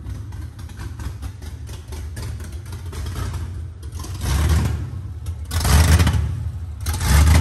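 Ford 4.6-litre three-valve V8, freshly swapped in and running on open headers, with no exhaust fitted. It runs steadily, then swells louder three times in the second half as the revs rise.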